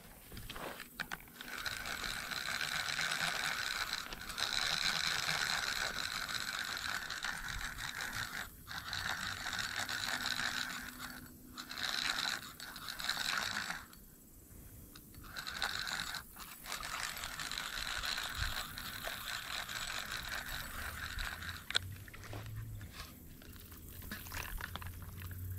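Fishing reel being cranked, its gears whirring in long stretches broken by short pauses, as a small channel catfish is reeled in to the bank.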